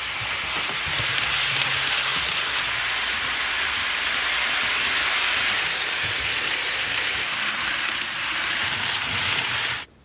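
HO scale model trains rolling along the track: a steady rushing hiss of wheels on rails with a faint low motor hum, cutting off suddenly near the end.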